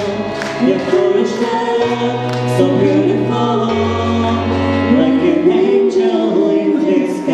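Music: several voices singing together in harmony over held bass notes that change pitch twice, then drop out about five seconds in.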